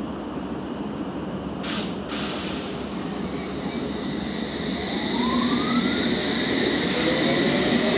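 London Underground S Stock train pulling away from the platform. Two short hisses come about two seconds in. From about halfway the electric traction drive's whine rises steadily in pitch as the train accelerates, growing louder.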